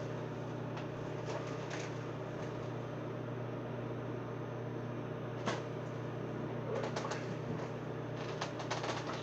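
Microwave oven running with a steady hum while cooking eggs. A sharp click comes about halfway through, and a scatter of short clicks and taps follows near the end.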